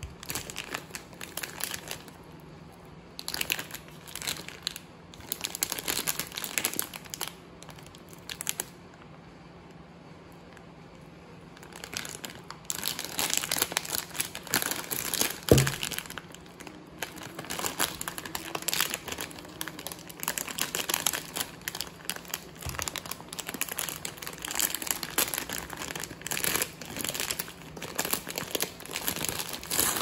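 Plastic ice-cream wrapper crinkling in the hands as it is handled and then torn open, in bursts, with a lull of a few seconds about a third of the way in. A single sharp knock about halfway through is the loudest sound.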